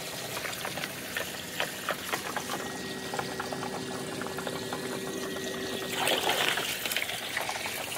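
Water pouring from a pipe into a plastic tub and splashing, with scattered small knocks and the submersible pump's faint steady hum underneath. A louder splash comes about six seconds in.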